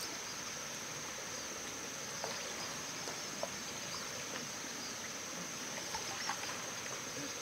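Steady outdoor background noise: an even hiss with a constant thin high tone running through it, and a few faint scattered clicks and taps.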